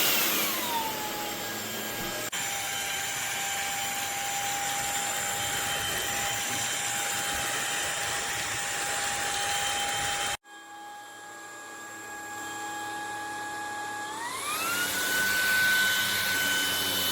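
MONSGA MV3 cordless stick vacuum running with a steady motor whine and rushing air. About half a second in, the whine drops in pitch as the motor winds down to a lower speed. It cuts off abruptly about ten seconds in and comes back. Near the end it winds back up to the higher pitch.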